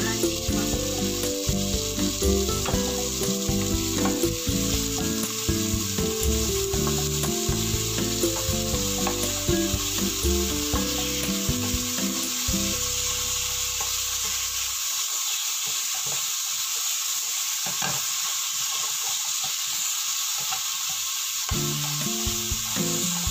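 Pork, mushrooms and garlic sizzling in oil in a frying pan, with a steady frying hiss. A wooden spatula stirs and scrapes them, with a few light knocks on the pan.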